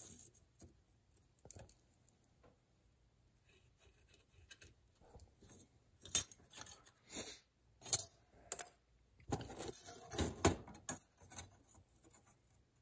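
Light metallic clinks and scrapes of rusty steel mink trap pans being handled, laid against each other and set onto a #2 Victor square jaw trap, louder in short clusters over the second half.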